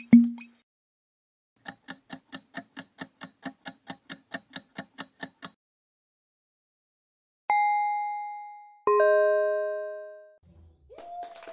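Quiz-game sound effects: a countdown timer ticking at about five ticks a second for roughly four seconds. A single bell-like ding follows, then a second, chord-like chime as the correct answer is revealed.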